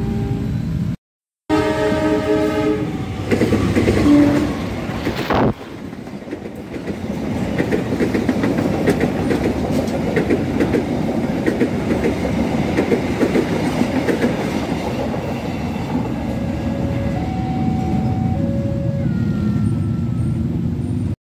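Train horn sounding a chord of several steady tones, then a train rushing past with the rapid rhythmic clatter of its wheels over the rail joints.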